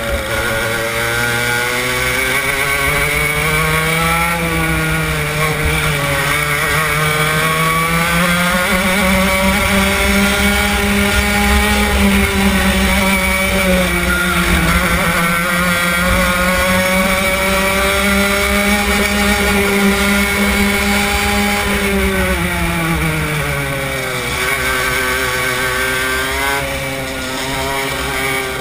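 Racing kart engine heard from onboard, revving up and down through a lap. The pitch climbs a few seconds in, holds high through the middle, drops about three-quarters of the way through as it slows for a corner, then rises again near the end.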